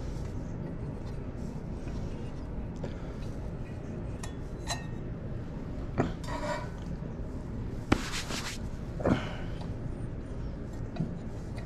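Scattered light clicks, clinks and brief scrapes from hands working at a propane Coleman lantern's metal burner as the burnt, ash-like mantles are picked off, over a steady low background.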